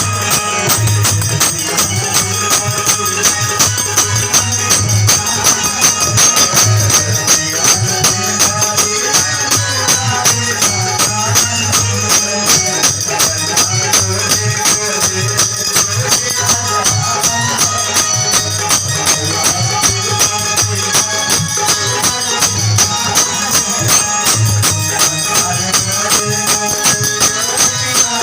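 Folk wedding-song music: fast, steady jingling percussion like a tambourine over regular drum beats, with a wavering melody line above.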